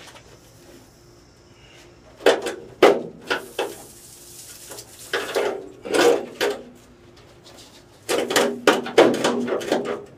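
Thin sheet metal from a water heater's outer jacket clanging and rattling as it is worked loose, in three bursts of knocks starting about two, five and eight seconds in.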